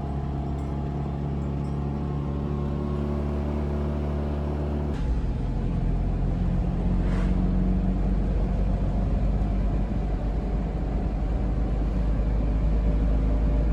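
First-generation Fiat Panda's engine running steadily on the road, with road noise. About five seconds in the sound changes suddenly to a louder, deeper rumble.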